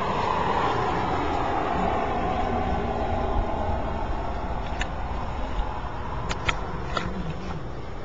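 Steady motor-vehicle engine and road noise, its pitch sinking slowly over the first few seconds, with a few light sharp clacks in the second half from two spike bull elk knocking their antlers together while sparring.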